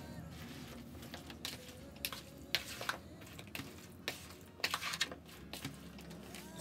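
A flat ladle stirring chopped green chillies and spice mix in a plastic bowl for achaar, making irregular clicks and scrapes against the bowl as the mix is scooped and turned.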